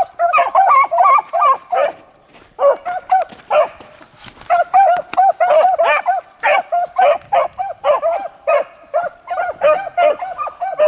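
A pack of beagles baying in quick, overlapping yelps as they run a rabbit's track, with a short break about two seconds in. Hound voice like this means the dogs are on the rabbit's scent.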